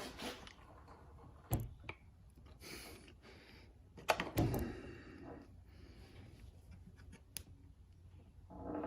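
Tools being worked on the seized screws of an outboard motor's exhaust cover: a few sharp metal knocks and tool clatter, one about a second and a half in and a closer pair about four seconds in, with light scraping between.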